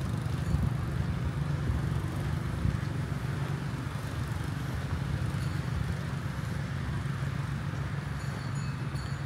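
Steady low rumble of road traffic: vehicle engines and tyres running by on a street.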